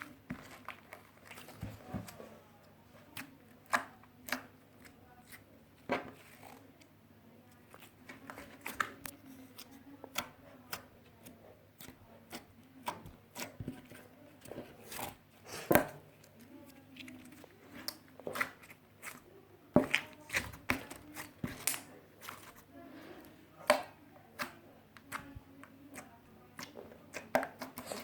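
Slime being squished and pulled by hand, making irregular sharp pops and clicks, sometimes several close together, with quieter stretches between.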